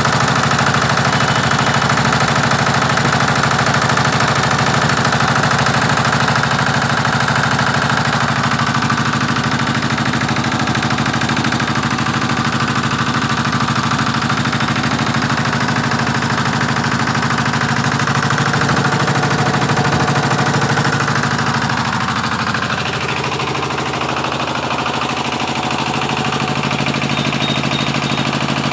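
20 HP single-cylinder power-pack engine running steadily while driving a 15 kVA single-phase generator, its rapid firing pulses plainly audible. About three-quarters of the way through, the level dips a little and the pitch shifts, then it settles and runs on.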